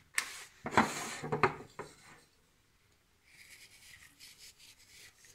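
Salt being rubbed between the fingers and sprinkled into a pot of broth, a soft, gritty, fluttering hiss in the second half, after a few louder brief handling sounds in the first two seconds.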